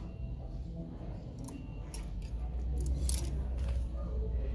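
Clothes on hangers being moved along a shop rack: a few light metallic clicks and scrapes of the hangers about two to three and a half seconds in, with fabric rustling and low handling rumble on the phone's microphone.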